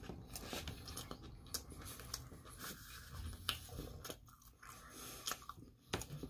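A mouthful of pizza chewed with the mouth closed: scattered crunches and small, sharp clicks.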